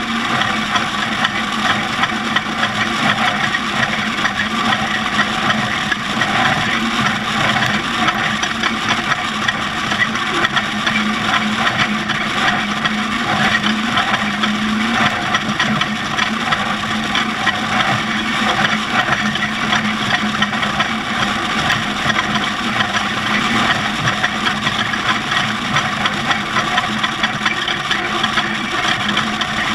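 Off-road race vehicle under way: engine running steadily with dense road and rattle noise.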